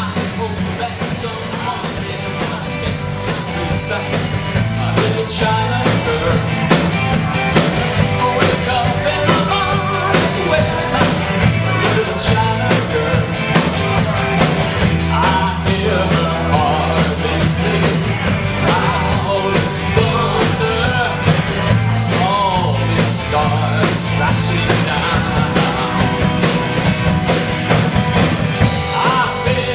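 Rock band playing a song: electric guitars, bass and drum kit keeping a steady beat, with a singing voice at times.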